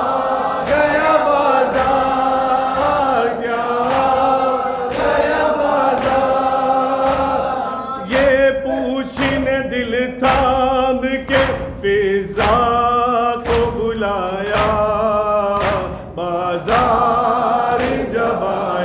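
A man sings an Urdu noha lament over a microphone, and a group of voices sings along in chorus. Sharp slaps come at a steady rhythm to keep time, strongest in the second half: the chest-beating of matam.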